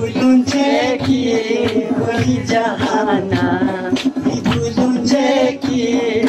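A male voice singing a vocal-only song: a wavering melody over a steady low drone that pulses in a quick rhythm, with sharp percussive ticks keeping the beat.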